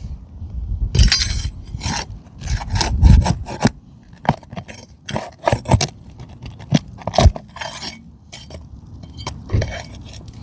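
A metal pry tool scraping and rasping under asphalt roofing shingles as it works roofing nails loose, in irregular gritty strokes with sharp clicks.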